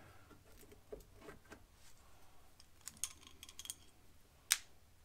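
Cleco pliers working the Cleco temporary fasteners in a thin aluminum radiator panel: scattered light metallic clicks, with one sharp click about four and a half seconds in.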